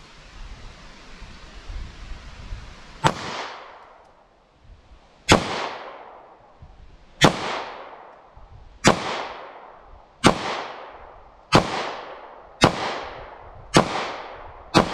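Taurus G2C .40 S&W pistol fired nine times, starting about three seconds in, with the shots coming faster toward the end and each followed by a short echo. The pistol cycles round after round without a jam on this magazine.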